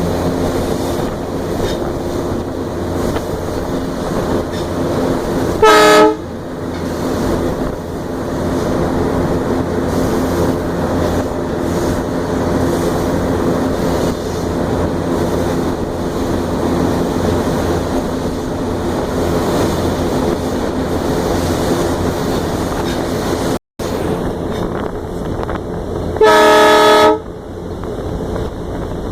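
Diesel locomotive's engine running steadily, heard from on board the locomotive, with two loud horn blasts: a short toot about six seconds in and a longer one of about a second near the end.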